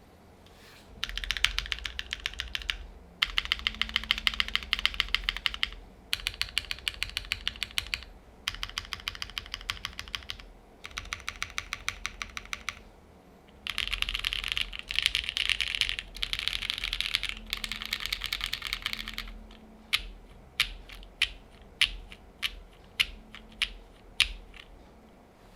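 Typing on a Bakeneko60 mechanical keyboard with lubed Gateron KS-3 switches on an FR4 plate, no foam, and GMK doubleshot ABS keycaps. Bursts of rapid keystrokes a few seconds each with short pauses, then slower single key presses near the end.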